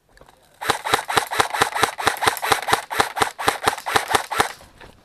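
Airsoft gun firing a quick string of evenly spaced shots, about five a second, for about four seconds. It starts just under a second in and stops near the end.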